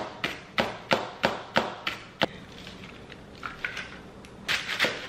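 Chef's knife chopping green onions on a plastic cutting board: about eight quick knocks, roughly three a second, stopping a little over two seconds in. Softer scattered knocks and handling noises follow near the end.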